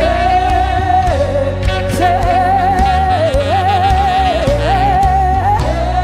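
Live gospel praise music: a lead voice holds long notes with vibrato, gliding between pitches, over sustained keyboard chords and bass with light percussion.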